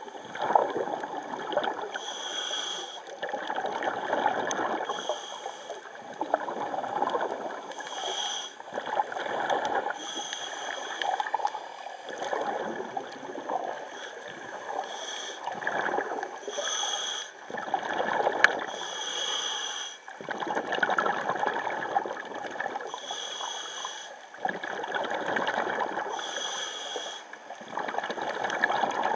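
Scuba regulator breathing heard underwater. A short hiss on each inhale comes about every two to three seconds, between gurgling rushes of exhaled bubbles.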